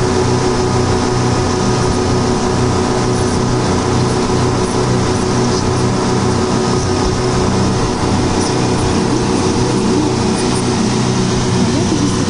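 A speedboat's outboard motor running steadily at speed, over the rush of water churned up in the wake.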